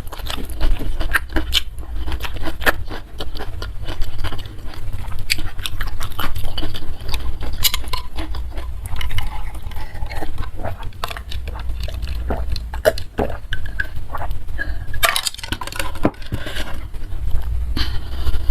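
Close-miked eating sounds: wet chewing and crunching with frequent small clicks and clinks of tableware, over a steady low hum.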